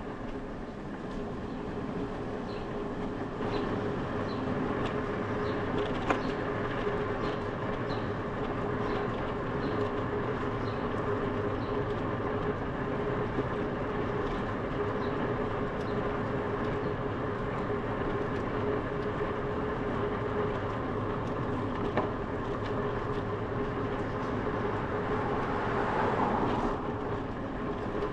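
A bicycle rolling along paved road, heard from a camera on the ride: a steady rush of tyre and wind noise with a steady hum through it. A light regular tick, a little more than once a second, runs through the first several seconds, and the noise swells briefly near the end.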